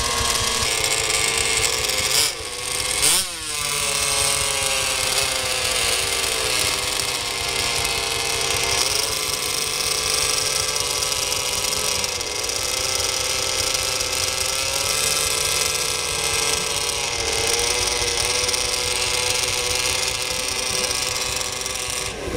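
Small two-stroke model engines with tuned pipes on a multi-engine RC micro-pulling tractor, running at high revs with a buzzing tone. About two seconds in the revs dip twice and climb sharply back up, then the engines hold fairly steady with small changes in pitch.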